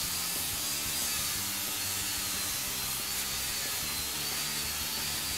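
Angle grinder with an abrasive disc grinding down fresh welds on a steel frame rail: a steady hiss of disc on metal over the motor's high whine, which wavers slightly as the load shifts.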